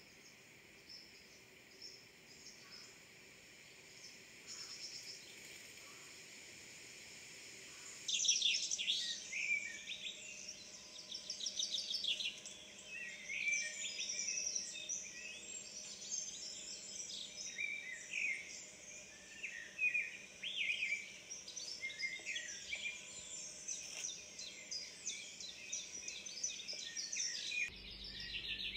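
Small songbirds chirping and singing in a nature recording, many short calls and trills overlapping. Faint at first, it turns much louder and busier about eight seconds in.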